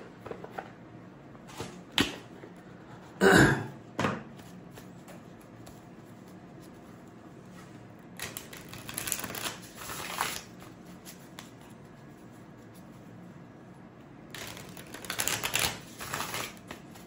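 Tarot cards being riffle-shuffled: two spells of rapid card flicking, each a couple of seconds long. A short, louder burst of card noise comes about three seconds in, with a few soft clicks around it.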